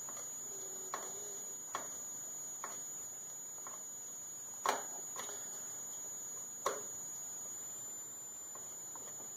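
Flat-blade screwdriver tightening a slotted grip screw into an AR-15 lower receiver through a polymer pistol grip. It makes about nine scattered faint clicks as the blade works in the slot, the two loudest near the middle, while the screw grows snug and harder to turn. A steady high-pitched whine sits underneath.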